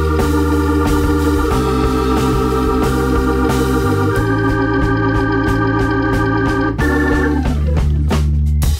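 Background music: sustained chords held and changed every couple of seconds, with a falling sweep near the end.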